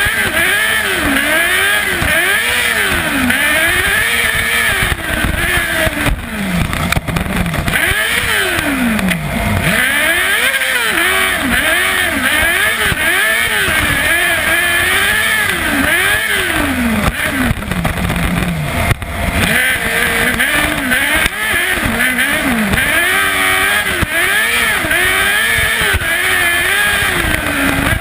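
Kartcross buggy's 600cc Yamaha R6 inline-four motorcycle engine at racing speed, heard on board, revving up and dropping back again and again every second or two as the driver works the throttle and gears on the dirt track.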